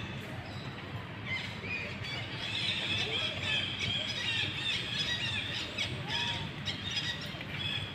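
Infant macaque squealing in a rapid run of short, high-pitched squeaky cries, starting about a second in and going on almost to the end.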